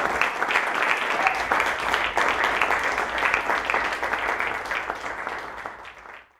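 Audience applauding, a dense crackle of many hands clapping that fades over the last second and then cuts off abruptly.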